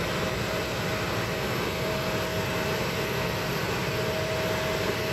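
Jet engines of an Airbus A320 idling as it taxis: a steady rumble and hiss with a steady hum-like tone.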